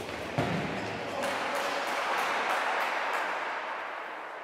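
A hard thump of a ball being struck on an indoor court, then spectators applauding, swelling and fading over about three seconds.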